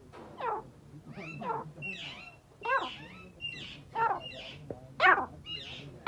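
Captive farm birds calling over and over: short calls that fall in pitch, about one a second and louder toward the end, mixed with harsher squawks.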